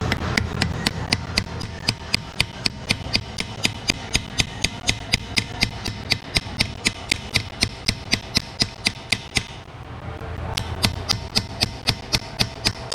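Hammer striking a cold chisel held against a drilled-out lug nut on a wheel stud: a steady run of sharp blows, about three or four a second, with a short pause about ten seconds in. The chisel is cutting an over-torqued, seized lug nut off the stud.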